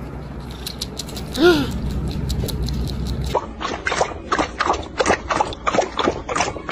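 A cat gives one short rising-and-falling meow about a second and a half in. After that a dog laps from a stainless steel bowl in quick, even wet strokes, about four a second.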